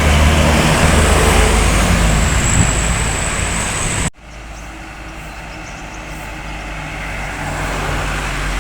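Tour buses driving past on the road: loud engine and tyre noise, cut off abruptly about four seconds in, then quieter engine noise slowly building as the next bus approaches.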